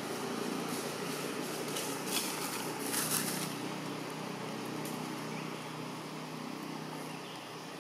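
Steady outdoor background noise, with a few brief rustles around the middle.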